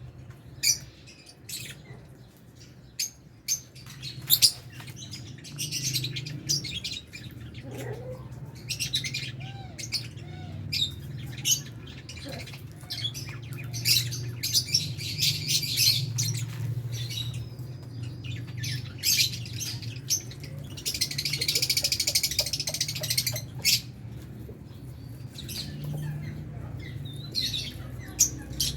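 Flock of lovebirds chirping and chattering in short, sharp calls, with a dense burst of chatter about two-thirds of the way through.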